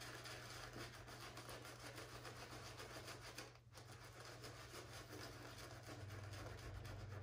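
Faint, steady swishing of a shaving brush being worked around the face in lather, with a brief pause about three and a half seconds in.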